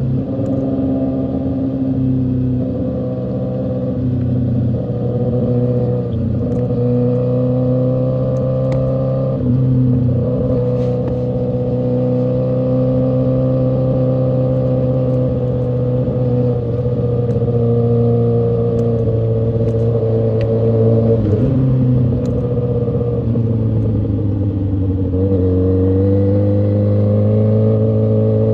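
Kawasaki Ninja ZX-6R inline-four engine running at highway speed, a steady engine note. It steps up in pitch about a third of the way in, eases off and drops a little past two-thirds, then climbs again near the end as the rider rolls back on the throttle.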